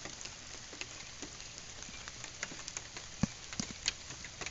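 Rain falling with a steady hiss, and single drops tapping irregularly on hard surfaces close by, a few louder taps near the end.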